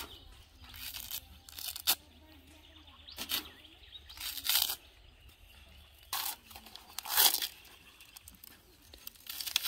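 Coconut husk being pried off the nut on a wooden husking stake and torn away by hand: a series of short, irregularly spaced fibrous rips and crunches.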